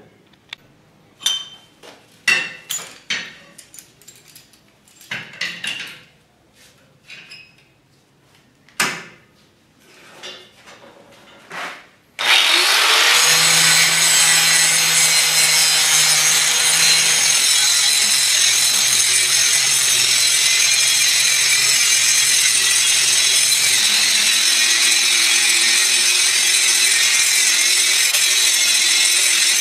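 Scattered clicks and knocks for about twelve seconds, then an angle grinder starts suddenly and grinds steadily against the edge of a 3/8-inch steel plate, cutting a weld bevel.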